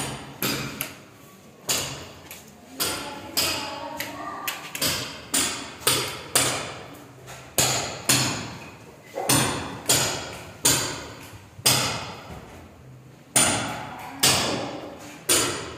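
Repeated sharp knocks at an uneven pace, one or two a second, each ringing out in bare, echoing concrete rooms.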